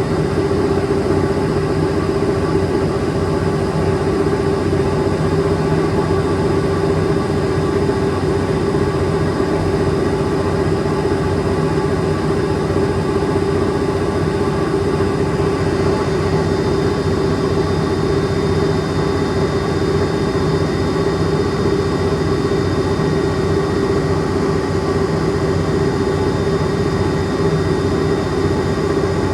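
Extra-large coin-laundry washing machine running: a steady, even mechanical hum with one strong held tone over a constant rumble.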